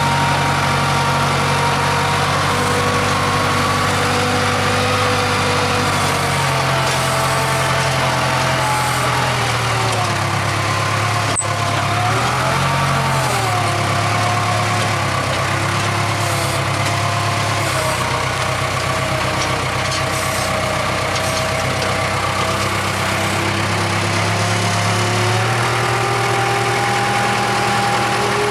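Diesel engine of a Case 580K backhoe running steadily, its pitch rising and falling as the machine works. There is one sharp click about eleven seconds in.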